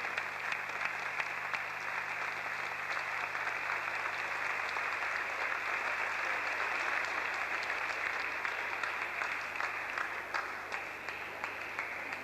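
Audience applauding, the clapping thinning out into scattered single claps near the end.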